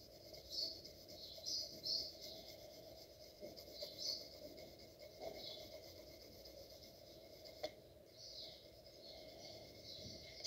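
Pencil lead scratching over drawing paper in short, irregular shading strokes, faint, with one sharp click about three quarters of the way through.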